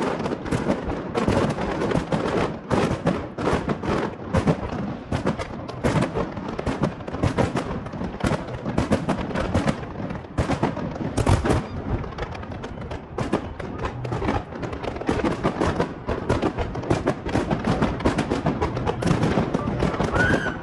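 Fireworks display going off in a dense, continuous barrage: many sharp bangs every second.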